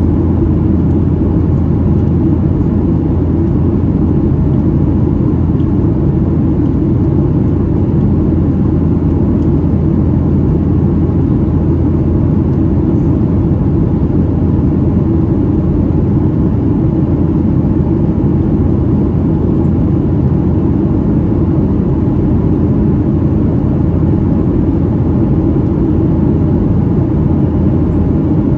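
Boeing 737-800's CFM56-7B jet engines and rushing airflow in flight, heard from inside the passenger cabin as a loud, steady low roar that does not change.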